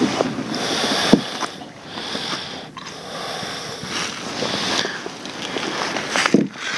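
Rustling and scraping handling noise with a couple of sharp knocks as a thornback ray is held and unhooked by hand, close to the microphone.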